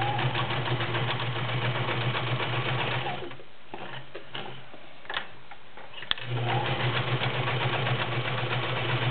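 Kenmore 385.1232 sewing machine running and stitching through ten layers of thick drapery fabric, with a steady motor hum and rapid stitch rhythm. It stops after about three seconds, a single sharp click comes about six seconds in, and then it runs again.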